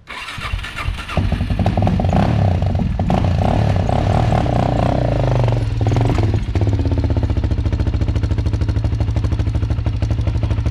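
Kawasaki KFX 400 quad's single-cylinder four-stroke engine starting about a second in and revving unevenly for several seconds, then settling into a steady, evenly pulsing idle at about six seconds.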